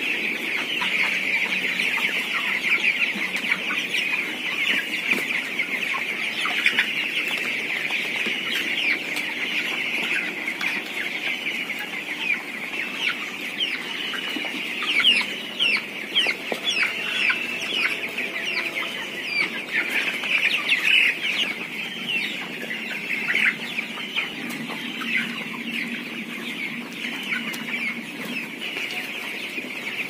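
A flock of 23-day-old broiler chickens peeping continuously, many short, high, falling calls overlapping into a steady chorus.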